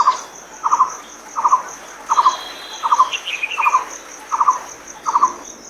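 Nature-sound track of birds and insects. A short trilled chirp repeats about every three-quarters of a second over a steady, fast-pulsing insect trill, with a few higher bird calls about two to three seconds in.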